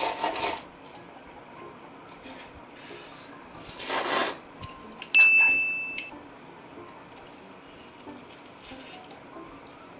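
Instant noodles slurped twice, at the start and about four seconds in, with faint chewing between and after. About five seconds in, a single high beep-like tone rings for about a second and is the loudest sound.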